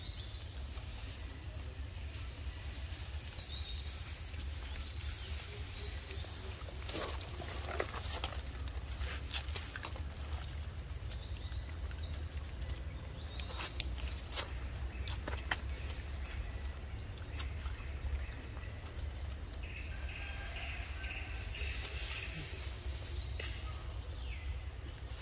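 Steady high-pitched insect drone over a low rumble, with scattered light clicks and a few short faint chirps.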